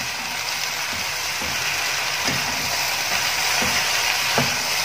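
Vegetables sizzling in a kadhai over a high gas flame, with a wooden spatula scraping and knocking against the pan every second or so as they are stirred. The hiss is the water from the vegetables cooking off.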